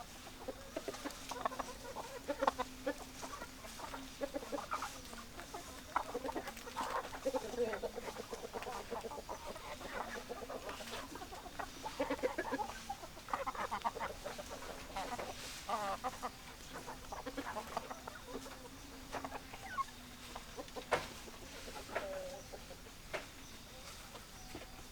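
Flock of chickens clucking, many short calls overlapping and following each other without a break, over a steady low hum.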